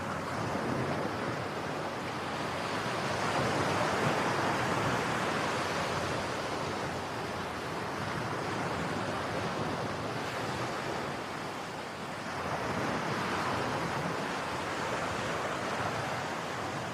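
Ocean surf on a beach: a continuous rush of waves breaking and washing in, swelling louder about four seconds in and again near the end.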